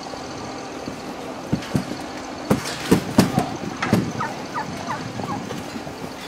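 White domestic turkeys packed in wire transport crates, calling: short gobbles and sharp calls from about a second and a half in, with a few quick high chirps past the middle, over a steady background hum.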